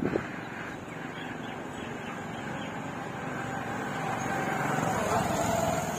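Street noise with a passing motor vehicle, its engine sound swelling and falling in pitch about five seconds in.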